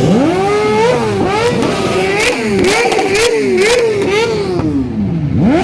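Motorcycle engine revved hard and repeatedly, its pitch rising and falling about twice a second as the throttle is blipped, with a few sharp cracks in the middle. It drops nearly to idle near the end, then picks up again.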